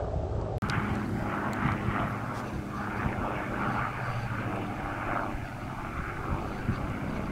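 Aircraft engine running overhead, a steady drone with a low hum under a rushing noise. The sound breaks off briefly about half a second in, then carries on.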